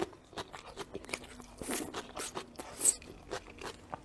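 Close-miked mouth sounds of someone eating: a run of crisp crunches and wet chewing clicks, with one sharp, louder crunch about three seconds in.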